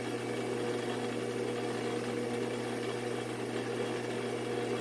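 Metal lathe running steadily with an even hum while its tool takes a facing cut across the end of the spinning bar stock.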